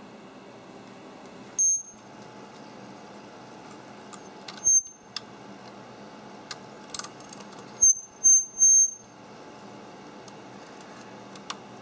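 Short, high-pitched chirps from inside a Lenovo laptop: one, then another a few seconds later, then three in quick succession. This is the unexplained noise the laptop makes even when fully assembled, the fault it came in for. A few faint clicks are heard between the chirps.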